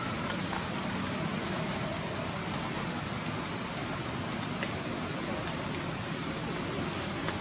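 Steady outdoor background hiss, with a few faint, short, high-pitched chirps.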